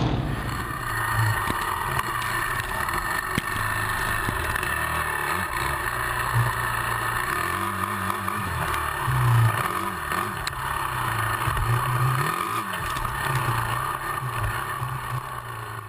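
Suzuki Bandit 1200's inline-four motorcycle engine running at low revs, with a few small rises and falls in revs about halfway through.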